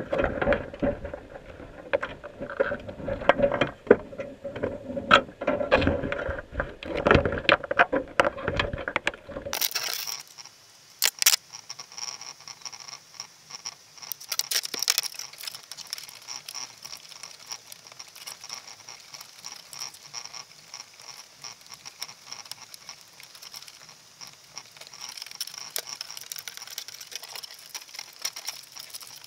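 Underwater clicking and scraping heard through a camera housing inside a wire crab pot, with a Dungeness crab clambering right against the camera. About ten seconds in it drops abruptly to a faint, steady high whine with scattered clicks.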